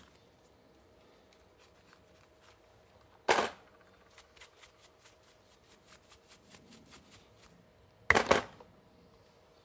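Steel wool and a small metal fitting being handled: two brief, loud, scratchy rustles about five seconds apart, with a run of light, quick clicks between them as the part is turned in the hand.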